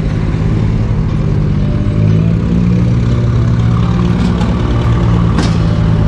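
Farm tractor engine idling steadily, a little louder from about two seconds in, with a short sharp click near the end.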